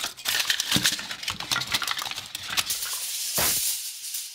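Steel tape measure blade spilling out of its opened case, rattling and crinkling with many quick clicks as it is handled. About three and a half seconds in comes a short rushing hiss.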